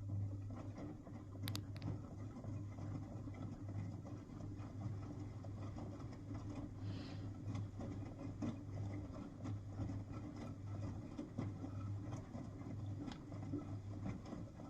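V-Zug Adora SLX 258 washing machine running a drum turn: a steady motor hum with clicks and patter over it, starting suddenly and stopping suddenly about fifteen seconds later.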